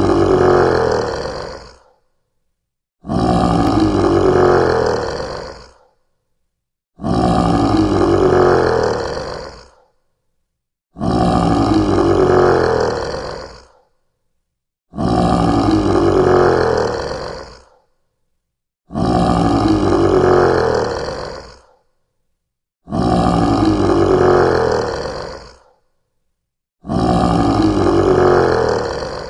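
Lion roar, looped: the same single drawn-out roar repeats about every four seconds, each one starting loud and fading out over a couple of seconds, with silence between.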